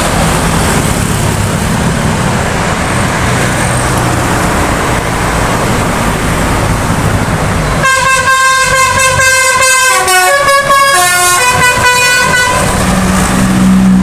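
Passing road traffic and motorcycle engines, then about eight seconds in a tour bus's telolet horn plays a quick tune of changing notes for about four seconds.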